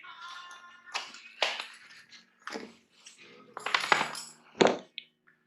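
Several separate clicks, knocks and scrapes of small hard parts being handled, the loudest about four seconds in: plastic turn-signal lens and light parts being fitted by hand.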